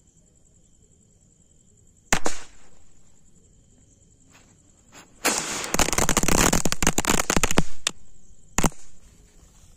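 Diwali firecrackers going off: one sharp bang about two seconds in, then a rapid crackling string of pops lasting about two and a half seconds, then one more bang near the end.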